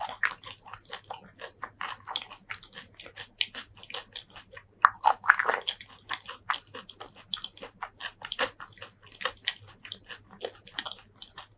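Close-miked mouth chewing a mouthful of food with the lips closed: wet clicking and smacking at about three or four chews a second, loudest about five seconds in.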